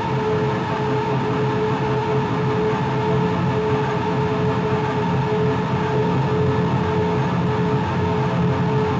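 Experimental electronic music from a live laptop-and-mixer rig: a steady, dense noisy drone with a held mid-pitched tone and a low rumble underneath.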